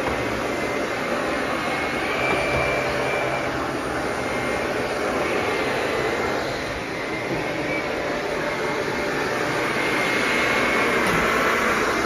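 Shark Navigator Anti-Allergen upright vacuum cleaner running steadily, with the motor and airflow making an even rushing noise and a faint whistle that wavers in pitch.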